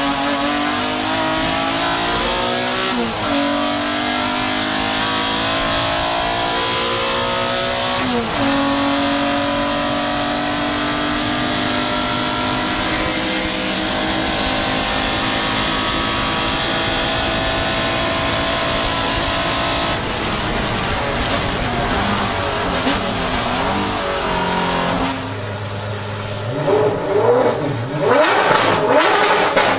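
Race car engine heard from inside the cockpit at full throttle, its pitch climbing steadily with two sharp drops and recoveries at upshifts, about three and eight seconds in. Near the end the sound changes to a car engine being revved in short rising bursts.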